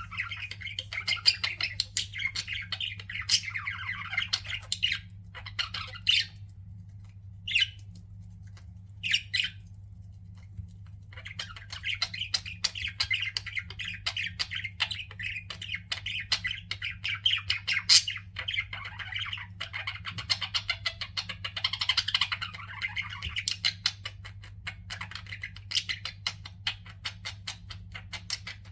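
Pet budgerigars chattering and warbling in rapid, overlapping chirps and squawks. The chatter thins to a few separate short calls for several seconds around the middle, then picks up densely again. A steady low hum runs underneath.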